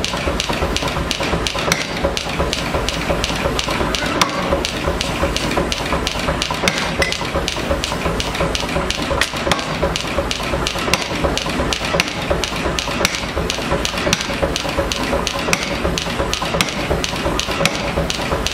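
Blacksmith's hand hammer striking a red-hot bar on an anvil in a steady rhythm, about three blows a second, over a continuous hiss.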